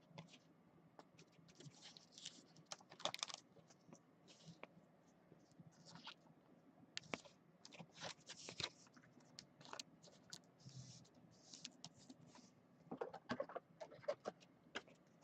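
Faint scattered rustles and clicks of a trading card being slid into a plastic card sleeve and a rigid 100-point top loader, with a cluster of louder clicks near the end.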